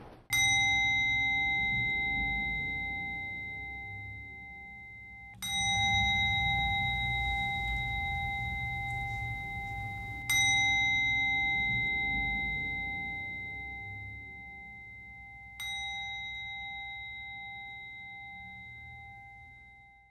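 A meditation bell struck four times, about five seconds apart, each strike giving a clear ringing tone that fades slowly.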